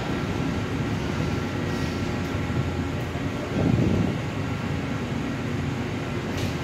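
Intercity passenger coaches rolling slowly on the rails of a ferry's enclosed train deck, a steady low rumble. The rumble swells louder for about half a second some three and a half seconds in.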